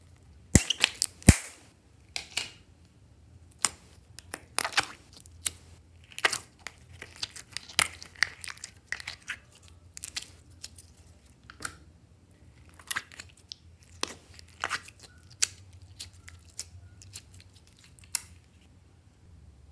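Plastic slime tub being snapped open, with two sharp loud clicks about a second in. Irregular crackles and clicks follow as the plastic tub is handled and slime is pulled out of its compartments.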